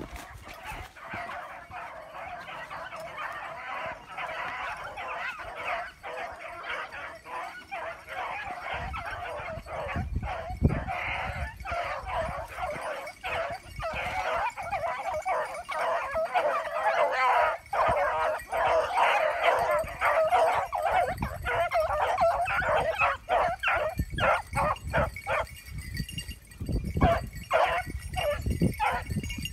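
A pack of hunting scent hounds giving tongue on a rabbit's trail, many voices yelping and baying over one another in a continuous chorus. Near the end the cry breaks up into more separate barks.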